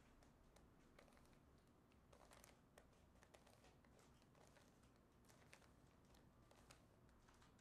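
Faint plastic clicking and rattling of a 3x3 Rubik's Cube as its layers are turned by hand: irregular small clicks, several a second, over a quiet room hiss.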